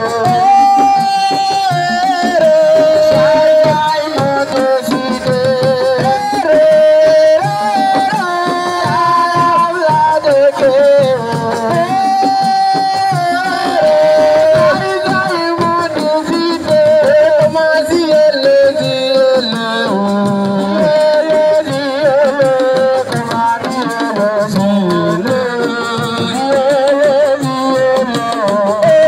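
Senegalese assiko music: a sung melody with held, wavering notes over fast, dense hand drumming.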